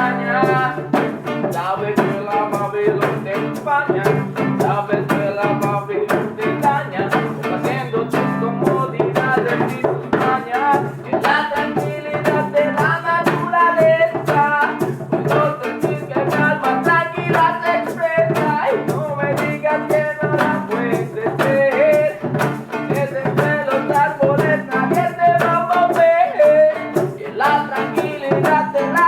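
Reggae song with guitar, drums and a steady beat.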